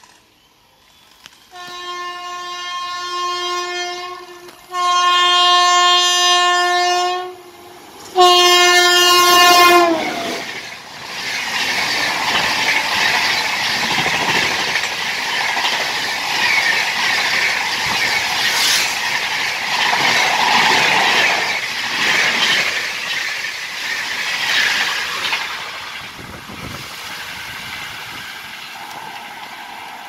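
WAP-7 electric locomotive's horn sounding three long blasts as the express approaches at speed, the third dropping in pitch as the locomotive passes. Then the coaches rush by with a loud rolling rumble and rhythmic wheel clatter that fades away near the end.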